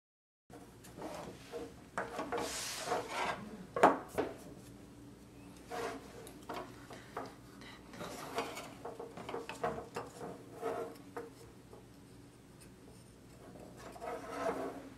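Wooden lamp-kit parts handled and fitted together on a wooden tabletop: irregular rubbing and scraping with light knocks, the sharpest knock about four seconds in.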